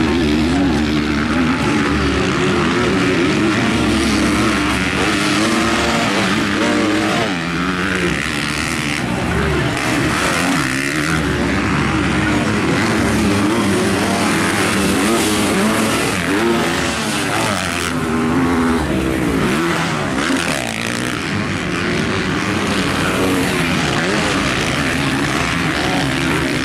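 Motocross bikes racing on a dirt track, their engines revving up and down continuously as riders accelerate and shift through the corners.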